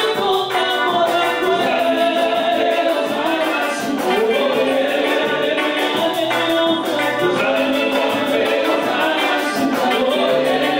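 Gospel worship song: women singing a melody with instrumental backing.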